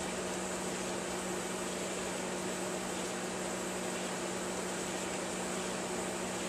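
A steady hiss with an even low hum, with no change or sudden sound in it.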